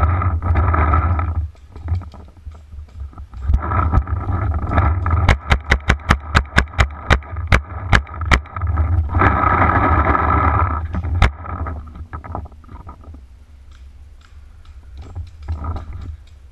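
Paintball marker firing a fast string of sharp pops, about five a second for roughly three seconds starting around five seconds in, then one more shot a few seconds later. Around the shots, branches scrape and rustle against a body-worn camera housing, with a heavy low rumble.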